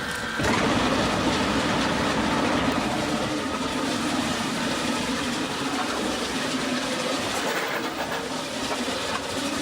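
Log debarker machinery running in a sawmill, a steady mechanical noise that starts about half a second in and holds even.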